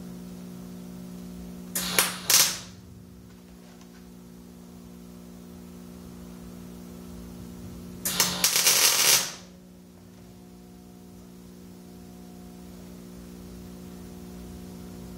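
Welder tacking 16-gauge steel onto a frame rail, its arc crackling in bursts: a quick double burst about two seconds in, then a longer one of about a second and a half near eight seconds. A steady hum runs underneath.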